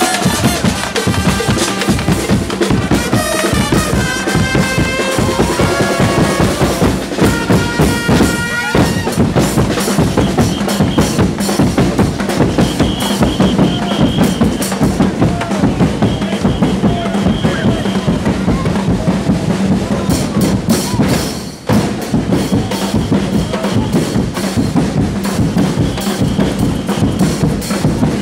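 Marching carnival band playing: bass drums, snare drums and cymbals beat a fast steady rhythm, with trumpets and chanting voices over them for roughly the first nine seconds, after which the drums carry on mostly alone.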